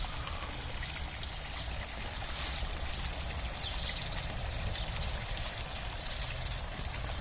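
Garden pond water blade: a sheet of water pouring steadily from a spillway ledge and splashing into the pond, aerating it.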